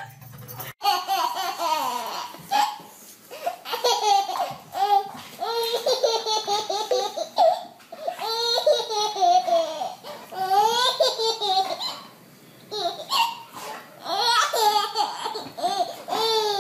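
Baby laughing in repeated bouts, each a string of high, rising and falling laughs, with short breaths between and a longer pause about twelve seconds in.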